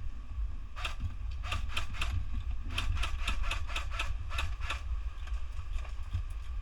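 A run of about a dozen sharp, irregular clicks lasting about four seconds, over a steady low rumble.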